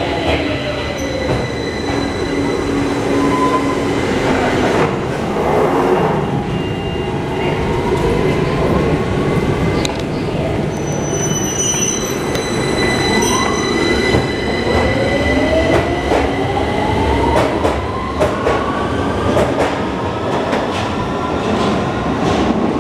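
London Underground 2009 stock train: its motor whine falls in pitch as it brakes into the platform, then rises in pitch from about halfway as it pulls away. A few short high beeps come around the middle, over a constant low rumble.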